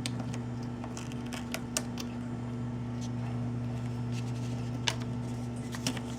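A few scattered small clicks and taps of plastic phone parts and tools being handled during a Galaxy S7 teardown, over a steady low electrical hum.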